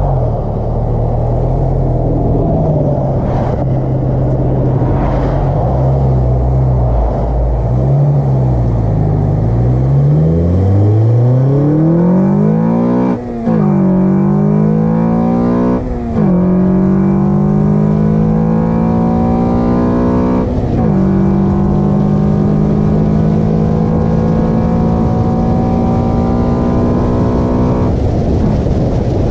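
Car engine fitted with an Acuity cold air intake, running at low revs and then accelerating. The revs climb and fall back sharply at three upshifts, about 13, 16 and 21 seconds in, then hold steady at cruise.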